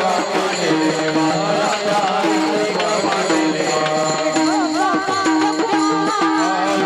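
Marathi devotional kirtan music: a woman singing a melody over a repeated held accompanying note and drum strokes, the singing most prominent in the second half.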